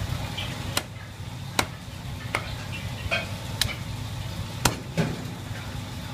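Meat cleaver chopping through pieces of fried chicken onto a thick round chopping block: about seven sharp knocks at uneven intervals, over a steady low hum.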